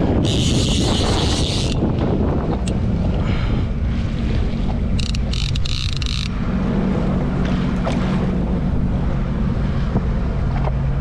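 Wind buffeting the microphone over the steady low hum of a jet ski engine. Twice a high buzz comes from the fishing reel while a hooked southern bluefin tuna is fought: once for about a second and a half at the start, and again for about a second from five seconds in.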